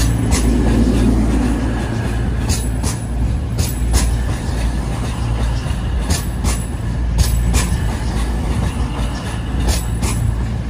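East Midlands Railway Class 222 Meridian diesel multiple unit moving slowly past along the platform. Its diesel engines give a steady low drone, and the wheels click over rail joints in pairs every few seconds.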